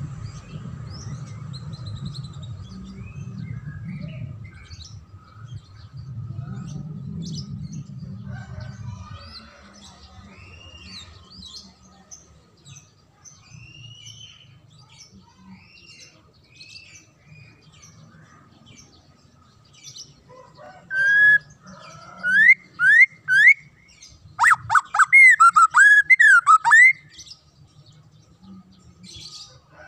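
White-rumped shama singing: scattered faint chirps and short whistles, then about two-thirds through a few loud rising whistled notes followed by a rapid run of loud looping whistles. A low rumble lies under the first third.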